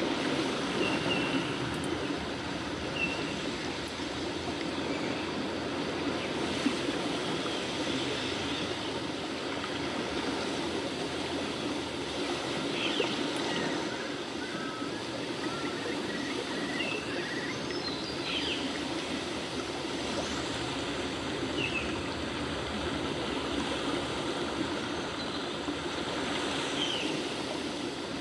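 Steady rushing sound like running water from a stream, with a few short high chirps like birds now and then.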